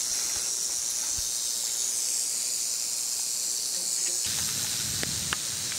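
Timber rattlesnake rattling: a steady, high buzzing hiss, strongest in the first couple of seconds and easing off later. A low rumble comes in about four seconds in, with a few faint clicks near the end.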